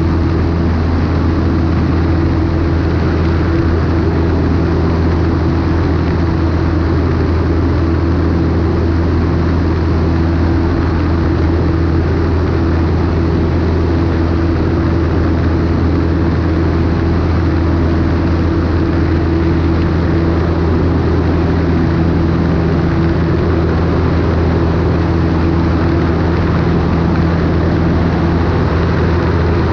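Cessna 152's four-cylinder Lycoming O-235 engine and propeller running at a steady, unchanging drone, with a continuous rush of air over the wing-mounted microphone.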